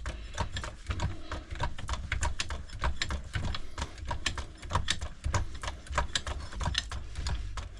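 Rebuilt hydraulic jack being pumped up quickly: a fast, uneven run of clicks and knocks from the pump handle and mechanism, with low thuds beneath, as the resealed jack rises under test.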